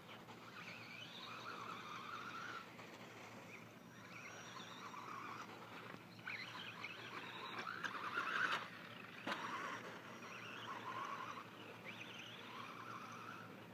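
Brushless electric motor of a Team Associated RC10B5 buggy whining, its pitch rising and falling over and over as the buggy accelerates and slows around the track. The whine is loudest a little past halfway, and a single sharp knock comes about nine seconds in.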